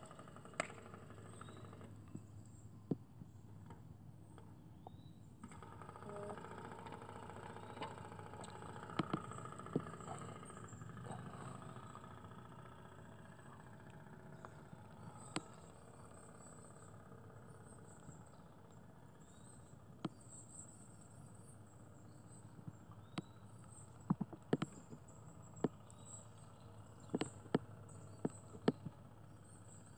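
Faint outdoor background: a steady low hum under high-pitched insect chirping, with scattered sharp clicks, several in quick succession near the end.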